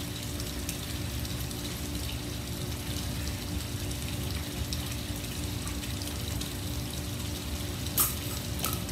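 Steady background hiss with a low, even hum, and a short sharp sound about eight seconds in.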